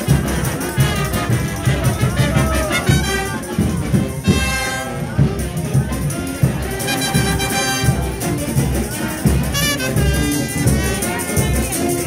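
Frevo brass band playing, trumpets and trombones carrying the tune over a steady drum beat.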